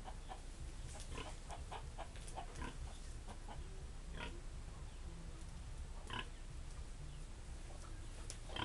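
Domestic pig grunting in short grunts: a quick run of them in the first few seconds, then single grunts every couple of seconds, over a low steady rumble.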